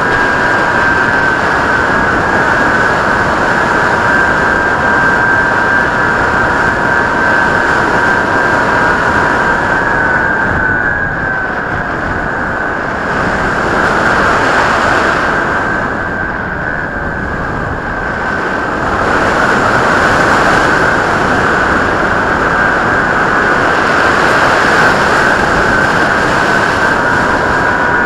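Skywalker RC plane's electric motor and propeller whining steadily over a heavy rush of wind. The lower note of the whine drops about ten seconds in as the throttle eases, and rises again near the end.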